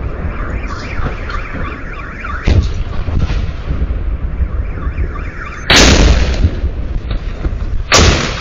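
Artillery shells exploding: a sharp bang about a third of the way in, then a big loud blast about two thirds through and another near the end. A car alarm warbles before the blasts.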